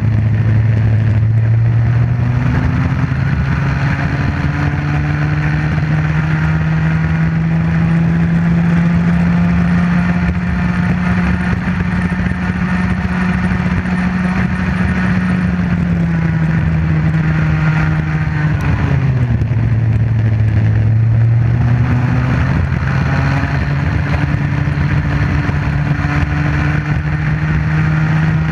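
Bambino kart's 50cc Comer two-stroke engine heard close up at racing speed. Its pitch climbs steadily through the first ten seconds and holds high, then drops sharply about two-thirds of the way through, as when the kart comes off the throttle, and climbs again near the end.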